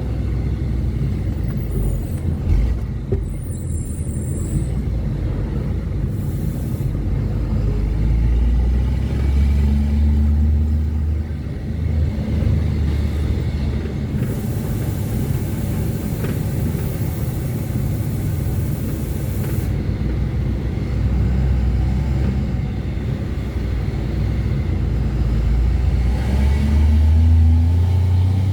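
Ford Cargo 2428 truck's diesel engine running under way, a steady low rumble with the revs rising about nine seconds in and again near the end.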